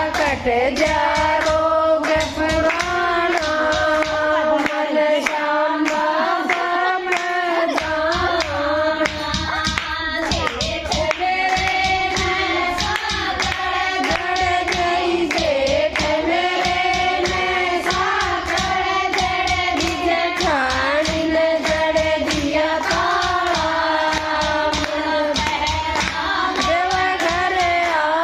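A group of women singing a Haryanvi devotional bhajan together in one melody, keeping time with steady rhythmic hand claps.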